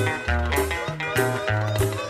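Dance music played over the sonidero sound system, with a bouncing bass line and steady percussion hits.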